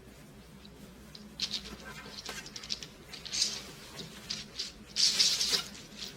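Short bursts of crinkly rustling from items being handled, the longest and loudest about five seconds in.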